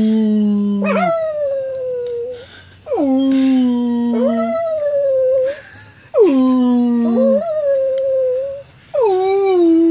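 Two small dogs howling along with a man who howls with them, in several overlapping voices. The howls come in rounds about every three seconds, each sliding down in pitch and then held, with brief pauses between rounds.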